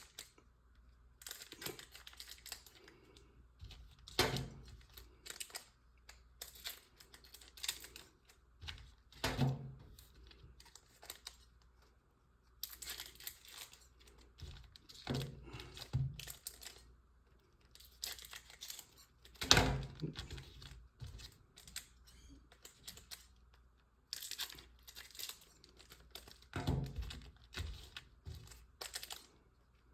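Plastic wrapping on a sealed trading-card box and its card packs crinkling and tearing as they are handled and cut open with scissors, with irregular clicks and a few louder knocks.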